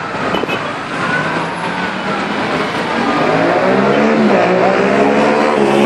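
Road vehicle engines running over loud traffic noise. About halfway through, an engine note grows louder and rises and falls in pitch, like a vehicle revving or passing close by.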